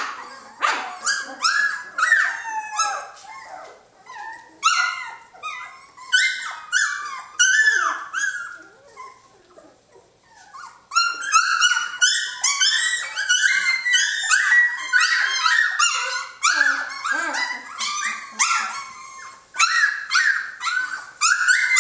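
Three-week-old Jamthund (Swedish Elkhound) puppies squealing and yelping: many short, high calls that bend in pitch. They come in scattered bursts at first and become a near-continuous chorus from about halfway through.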